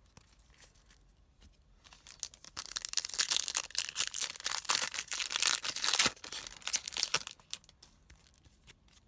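Foil trading-card pack wrapper being torn open and crinkled. The quiet start gives way after about two seconds to a dense crackling that dies back to a few light ticks near the end.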